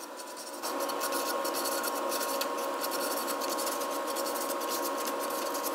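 Sandpaper rubbed by hand in quick strokes over the routed edges of holes in a plywood sheet, a dry scratchy rasping. A steady hum joins in about half a second in and runs beneath it.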